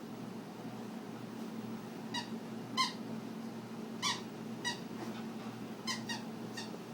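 Dog chewing a squeaky toy: a string of about seven short, high squeaks beginning about two seconds in, some in quick pairs, over a steady low hum.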